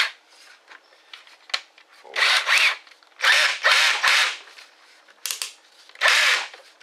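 Ridgid X2 cordless hammer drill's motor run in about three short trigger bursts, the first spinning up in pitch, with a quick rattle of clicks in between. It is being test-run on its newly replaced variable-speed trigger switch.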